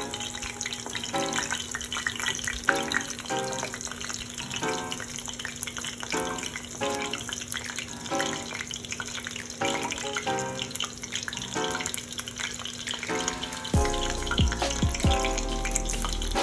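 Panko-breaded pork cutlet deep-frying in a pan of oil: a steady crackling sizzle, under background music with held chords.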